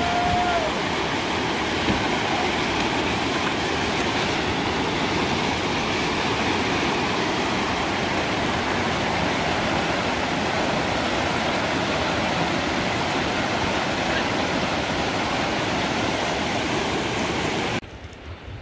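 Steady rush of river rapids, white water churning over shallow riffles. Near the end it cuts suddenly to a much quieter flow of water.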